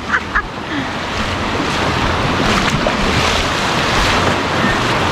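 Sea surf washing in at the shoreline, a rushing noise that builds about a second and a half in and stays strong, with wind buffeting the microphone.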